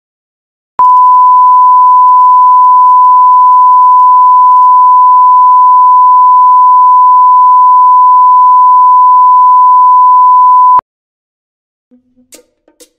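Broadcast line-up test tone that goes with colour bars: one loud, steady pure tone held for about ten seconds, starting and cutting off suddenly. Faint music begins near the end.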